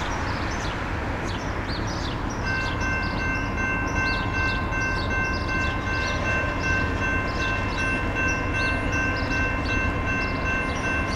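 Horn of an approaching Norfolk Southern GE AC44C6M freight locomotive sounding one long, steady chord from about two and a half seconds in, over a low rumble. Birds chirp repeatedly in the background.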